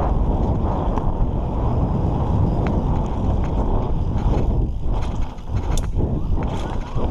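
Mountain bike riding fast down a dirt trail: wind buffeting the microphone and tyres rumbling over the dirt, with the bike's parts rattling and a few sharp clicks and knocks, the loudest nearly six seconds in.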